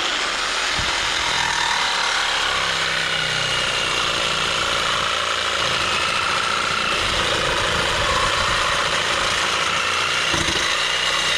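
Power saw cutting through steel exhaust pipe, running steadily without a pause after starting abruptly.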